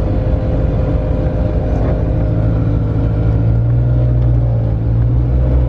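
A 4WD's engine running steadily as it drives, its note stepping slightly lower about three and a half seconds in.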